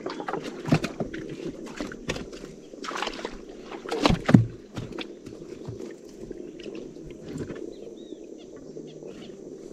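Irregular knocks and clatter in a small boat on the water, the loudest cluster about four seconds in, over a steady low hum.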